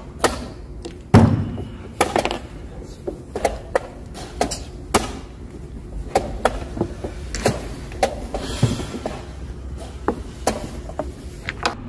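Wooden chess pieces set down on a wooden board and a chess clock's buttons slapped in quick turns during a fast game: an irregular run of knocks and taps over a steady low room hum, the loudest knock about a second in.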